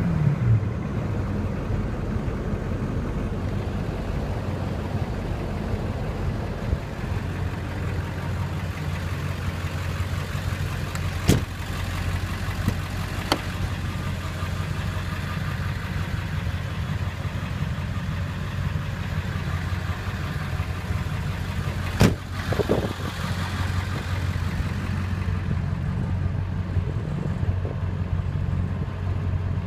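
Ford 7.3 Powerstroke V8 turbo diesel easing back from a rev at the start, then idling steadily. A few sharp clicks and knocks sound around the middle and about two-thirds in.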